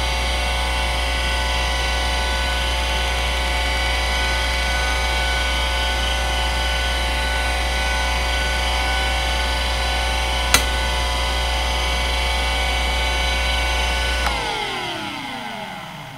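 Seagate ST3211A (a relabelled Conner CFS210A) 3.5-inch 3600 rpm IDE hard drive spinning under a read test, a steady whine of several tones over a low hum, with a single sharp click partway through. Near the end the drive spins down: the whine glides steadily lower in pitch and fades.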